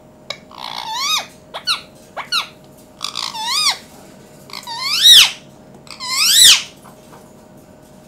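Indian ringneck parakeet giving a series of about six high-pitched squawking calls, each rising then falling in pitch, the last two the loudest.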